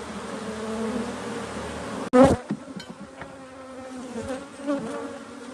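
A swarm of honeybees buzzing at a hive, a steady, wavering hum. About two seconds in there is one sudden loud knock, and then the buzzing carries on a little quieter.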